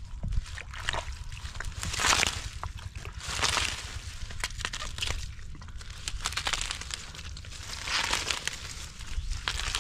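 Hands groping for fish in wet mud and shallow water, squelching, sloshing and rustling water hyacinth leaves, in several noisy bursts with small clicks between.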